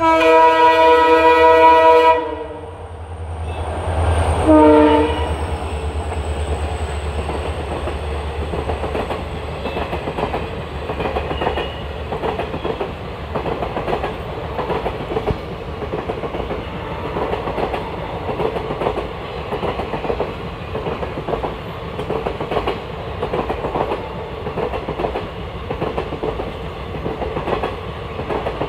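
WDP4D diesel locomotive sounding its horn in a loud blast of about two seconds, then a short second blast about four and a half seconds in, its engine rumbling as it passes. The passenger coaches then roll by with a steady rhythmic 'tadak tadak' clickety-clack of wheels over the rail joints.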